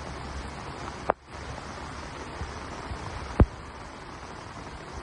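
Steady rushing noise of heavy rain and floodwater, broken by two sharp knocks, one about a second in and a louder one past three seconds in.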